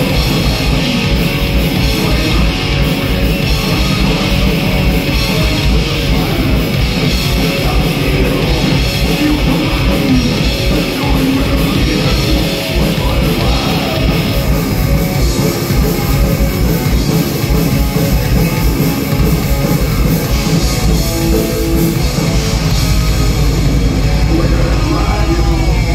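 Live heavy metal band playing loud: distorted electric guitars and a drum kit.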